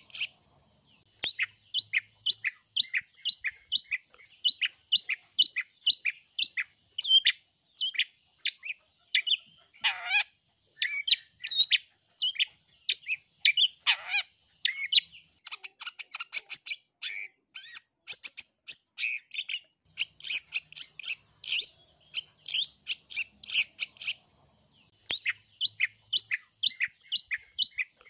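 Long-tailed shrike (cendet) calling: a fast series of short, sharp, high chattering notes, about three a second. Twice near the middle come longer notes that fall steeply in pitch, and after the second one the notes run together into a quicker rattle.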